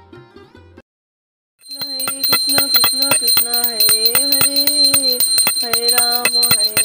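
Sitar-and-tabla background music cuts off under a second in. About a second later a puja hand bell starts ringing rapidly and continuously, a high steady ring with many quick strokes, while a voice chants in long held tones over it.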